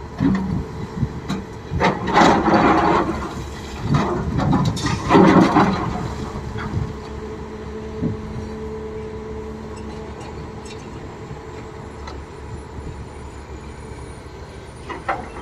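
Heavy excavator's diesel engine and hydraulics working. There are several loud, rough surges in the first six seconds, then the machine settles into steadier running with a faint held whine.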